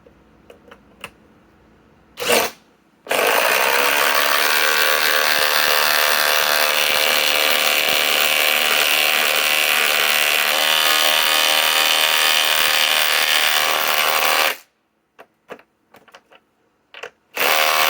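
Ridgid 4-mode impact driver driving a large lag screw into wood: a short blip, then a continuous hammering run of about eleven seconds that stops suddenly, and another brief burst near the end.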